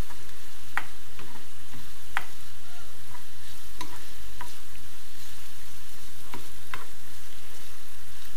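Diced carrot and onion sizzling steadily in oil in a frying pan, being lightly sautéed, while a plastic spatula stirs them, scraping and tapping against the pan now and then.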